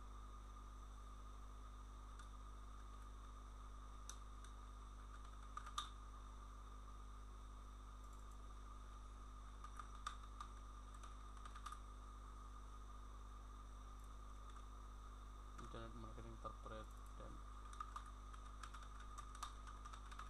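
Sparse computer keyboard keystrokes and mouse clicks over a steady electrical hum from the recording setup, with a brief low murmured voice about three-quarters of the way through.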